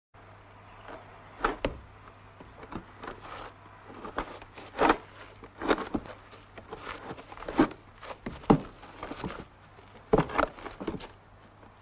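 Clods of earth falling onto a wooden coffin lid in a grave, a dozen or so irregular thuds, some in quick pairs, over a low steady hum.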